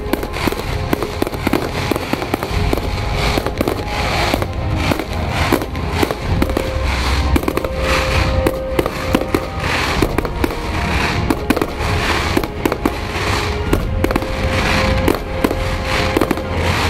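Aerial fireworks display: shells bursting one after another in a dense, rapid series of bangs and crackles, with music playing underneath.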